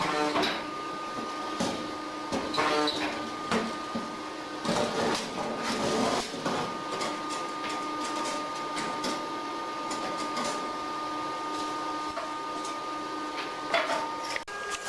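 Tân Thành HB15 press-type spot welder being worked: irregular sharp clicks and knocks over a steady thin whine.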